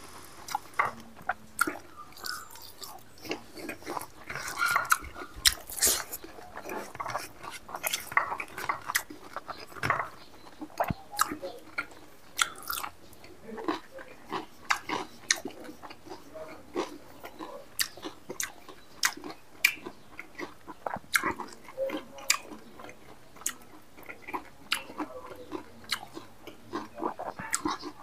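Close-miked chewing and lip-smacking of a man eating rice and mithun meat with his fingers: an irregular run of many short, sharp wet mouth clicks.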